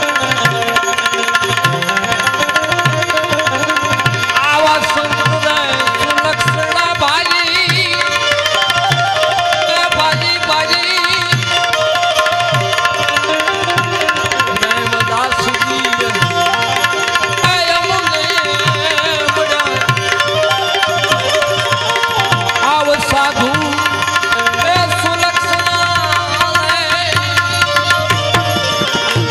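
Bhajan music with no words: tabla playing a steady rhythm, the low drum's strokes bending in pitch, under held notes and a wavering melody line.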